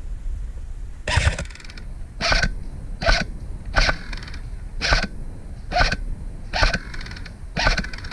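Footsteps crunching through dry grass and brush at a steady walking pace, about one step a second.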